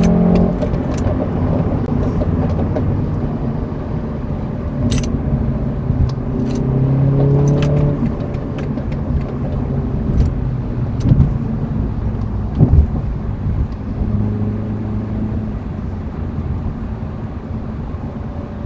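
BMW 340i's turbocharged 3.0-litre inline-six running, its note rising and falling, with several sharp exhaust pops and crackles, the burbles, scattered through.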